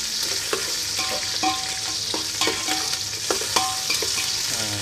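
Ginger slices and lemongrass sizzling in hot oil in a metal pot, with a steady hiss, while a metal spoon stirs them and clinks against the pot several times, each knock ringing briefly.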